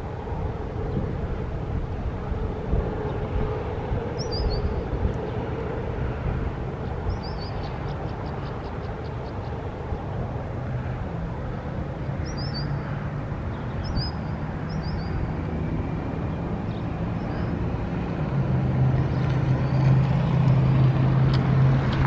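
Steady road-traffic noise, with a low engine drone that grows louder in the last few seconds as a vehicle comes close. Short bird chirps come through several times over it.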